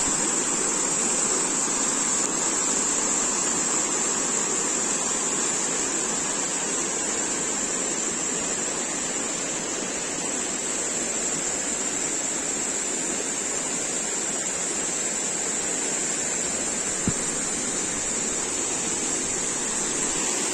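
Muddy, flood-swollen mountain stream rushing steadily and pouring over a low concrete weir, an even, continuous roar of water. A single brief click sounds near the end.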